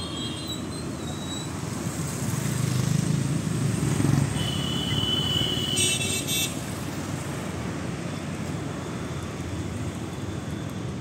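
Road traffic going by: cars and motor scooters pass, one passing close between about two and four seconds in. A vehicle horn sounds for a second or so around the middle, ending in a few quick toots.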